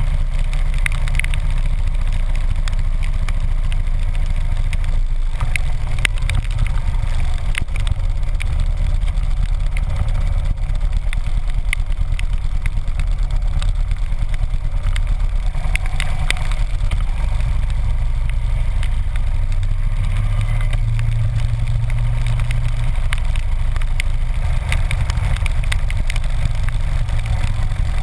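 Harley-Davidson V-twin engine running steadily at road speed under wind noise, heard from a camera mounted on the riding motorcycle, with scattered sharp ticks of raindrops hitting the camera.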